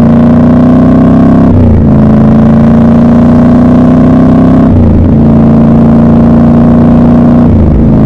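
Triumph Scrambler 1200 XC's 1200 cc parallel-twin engine pulling hard under acceleration, its revs climbing steadily in each gear. Three quick upshifts break the sound, about two, five and just under eight seconds in, each with a brief drop in pitch before the engine pulls again.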